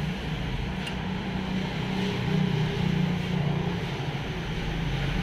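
A steady low mechanical hum, with a faint click about a second in and a deeper rumble joining near the end.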